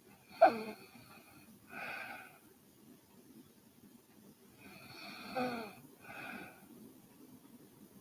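A sleeping woman snoring: two breaths about five seconds apart, each a snore followed by a softer breath. The first snore opens with a sharp, loud snort.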